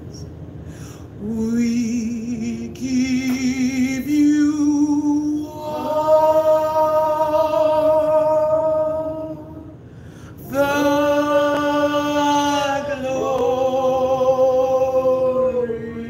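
Slow worship singing: long held notes with vibrato, each lasting a few seconds, the first few climbing step by step, with a short break about ten seconds in.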